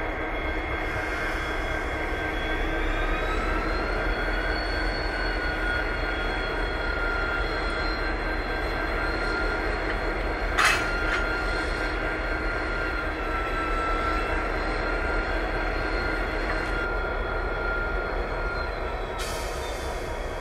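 Diesel-electric locomotives idling with a steady engine drone, the engine note rising slightly a few seconds in as the locomotive creeps up to couple. About ten seconds in, a single sharp clank as the couplers meet and lock.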